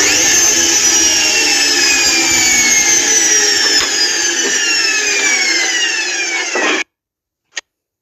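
Arctic front-loading washing machine's motor whining as the drum spins down, its pitch falling slowly and steadily. The sound cuts off abruptly about seven seconds in, and one short click follows.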